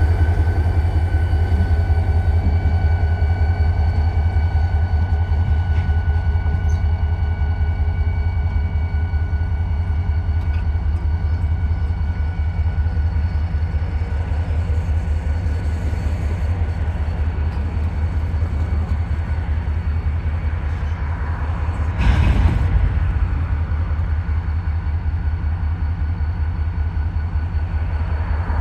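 EMD GP40-2 diesel locomotive running, its turbocharged 16-cylinder engine giving a steady, evenly pulsing low rumble, with a faint whine that fades away over the first half. A short, louder rush of noise comes about 22 seconds in.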